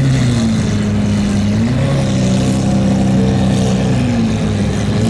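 Supercar engines running at low revs as the cars creep past in a line, led by a Lamborghini Murciélago's V12. The engine note holds steady with small rises and falls in pitch.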